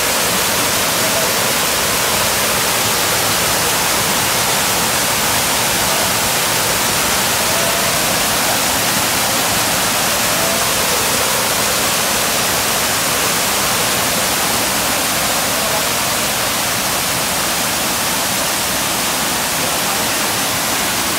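Waterfall pouring over rock into a pool: a steady, loud rush of white water, mostly hiss with little low rumble.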